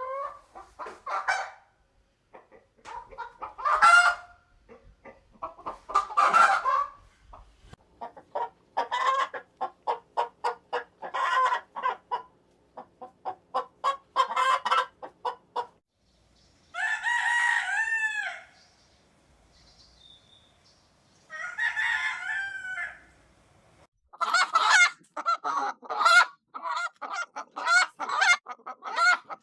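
Chickens clucking in quick runs of short calls, with a few louder squawks early on. Partway through, a rooster crows twice, a few seconds apart, and then rapid clucking resumes.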